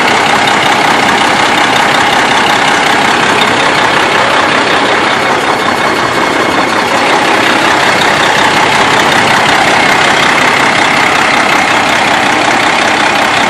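2005 Freightliner Columbia semi truck's diesel engine idling steadily and loudly, with the rough idle that the owner reports.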